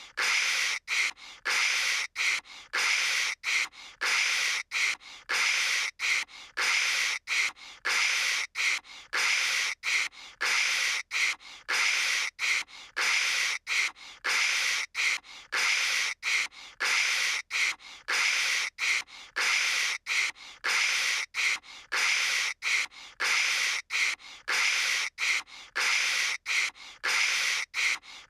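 A voice making hissing "kshh" static noises with the mouth, imitating a crackly phone line: short bursts of hiss, about two a second, repeated over and over.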